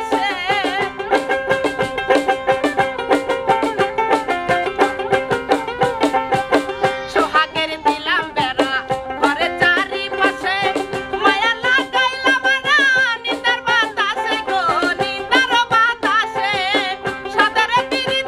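A woman singing a Bengali folk song with wavering held notes, accompanied by a plucked dotara and a steady percussion beat.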